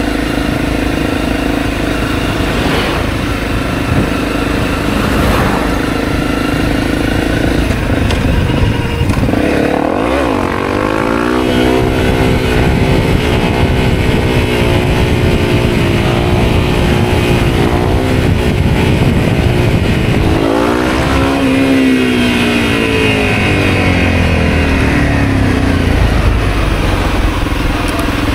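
Honda CRF250L's single-cylinder four-stroke engine running under way. It revs up steeply about ten seconds in, holds steady, then its pitch rises and falls again about twenty seconds in.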